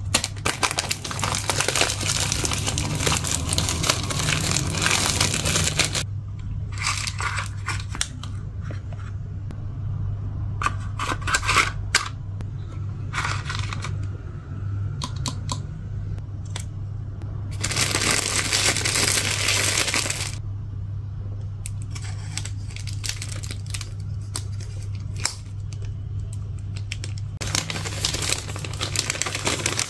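Thin plastic packaging crinkling and tearing as it is handled and pulled open, in irregular bursts lasting from about one to six seconds, over a steady low hum.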